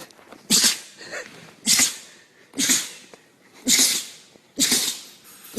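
A run of five short sneezes, about one a second.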